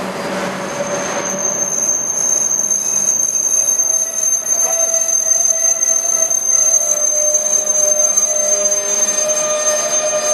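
Steel freight train pulling out, its wheels giving a steady high-pitched squeal that starts about a second in, over the lower rumble and hum of the moving train.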